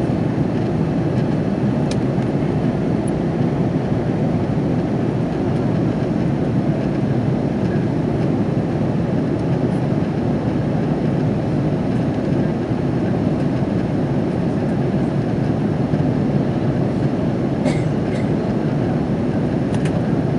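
Steady cabin noise inside an Airbus A330-300 in flight: a constant low rumble of the engines and airflow, with a few faint clicks.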